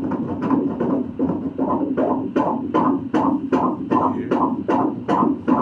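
A 22-week fetus's heartbeat played through an ultrasound machine's Doppler, a steady rhythmic pulse of about two and a half beats a second, at a heart rate of around 155 beats a minute.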